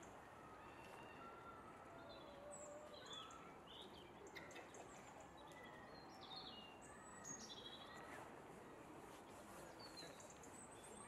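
Quiet outdoor ambience with many short, high bird chirps and calls scattered throughout.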